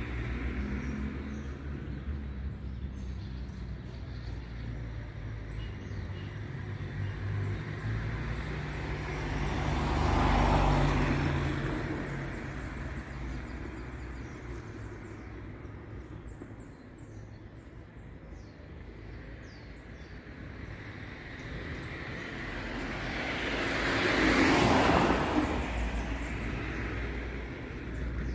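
Road traffic: a steady low rumble, with two vehicles passing that swell and fade, one about ten seconds in and another near the end.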